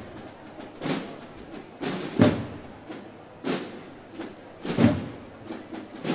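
Slow, measured drumming of a Holy Week procession: one heavy stroke about every 1.3 seconds, some of them doubled, with lighter taps in between.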